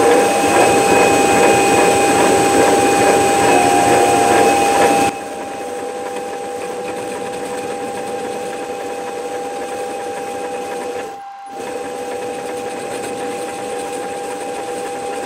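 Metal lathe running with a steady whine while the tool takes a facing cut across a steam-engine bearing block, a dense hiss of cutting. The cutting noise stops abruptly about five seconds in, leaving the lathe running on its own, with a brief dip in level about eleven seconds in.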